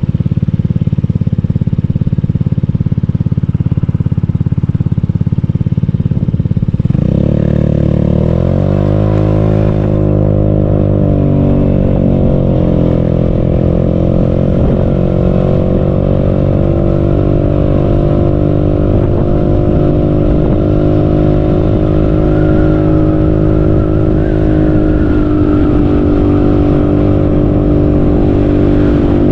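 Motorcycle engine running while riding, rising in pitch as it accelerates about seven seconds in, then holding a steady, higher note at cruising speed.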